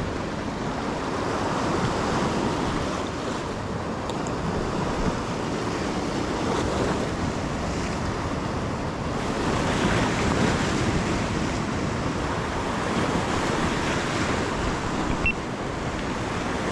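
Sea waves breaking and washing over rocks in steady surf, swelling louder about ten seconds in, with wind on the microphone.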